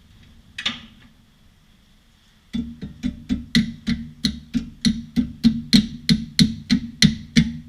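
A hammer striking metal: one blow, then a steady run of about three blows a second, each leaving the same ringing metallic tone.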